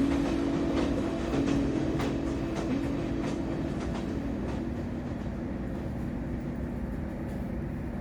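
Passenger train running on the rails: a steady rumble with a low hum and scattered light clicks of the wheels, slowly fading away.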